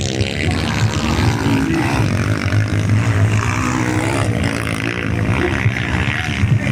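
Motorcycle engines running and revving, their pitch rising and falling.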